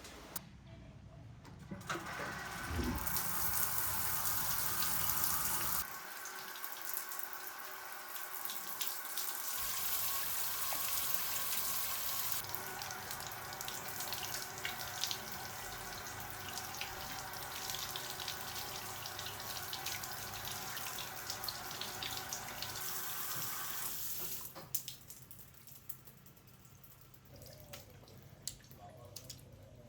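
Running water splashing steadily. The sound changes abruptly a couple of times, and about 24 seconds in it drops away to a much quieter background.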